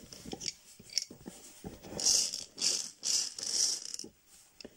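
Small plastic bingo balls rattling and tumbling inside a hand-turned clear plastic bingo drum, with scattered clicks and then a few louder rattling bursts about two to four seconds in.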